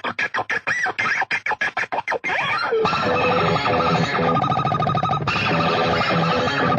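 Rapid, stuttering scratch-like bursts of sound, about five a second, for a little over two seconds. Then comes a dense, continuous stretch of music with a distorted, guitar-like tone.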